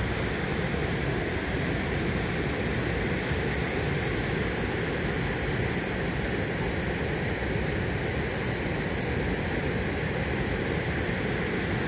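Steady rushing of whitewater rapids on the Youghiogheny River, an even, unbroken hiss of moving water.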